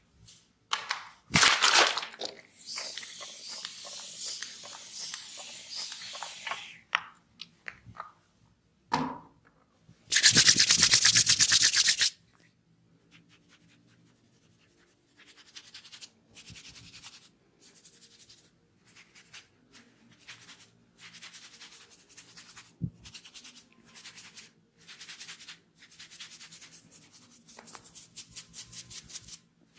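Hands rubbing through long hair and over the scalp in a head massage, close to the microphone, in repeated strokes. About ten seconds in comes a loud two-second burst of very fast rubbing. Near the end there is a run of quick, regular patting.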